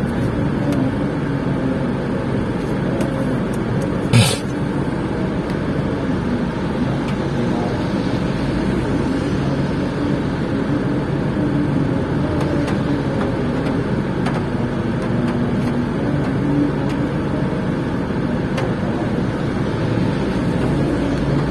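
Steady car engine and road hum heard from inside the cabin. One short, sharp sound stands out about four seconds in.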